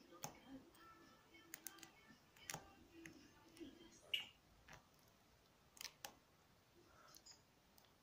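Faint, irregular clicks of a lock pick working the pin tumblers inside a small brass Squire padlock, about a dozen in all, the loudest about four seconds in.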